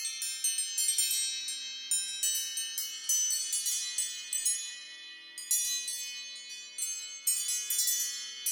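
iPhone ringtone of wind-chime-like bell tones: a dense cascade of high, ringing metallic notes struck in quick succession, thinning briefly halfway through before a fresh flurry.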